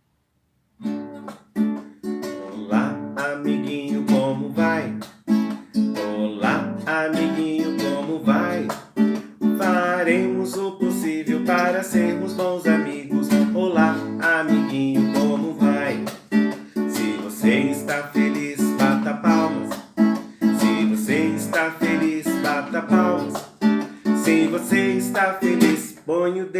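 Children's song with strummed acoustic guitar and a singing voice, starting just under a second in.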